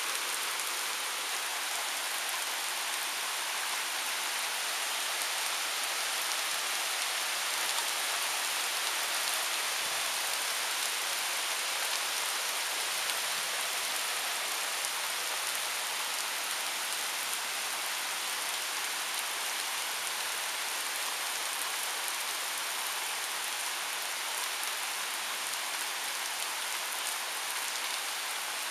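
Steady downpour of thunderstorm rain, an even hiss of drops striking an asphalt driveway and lawn.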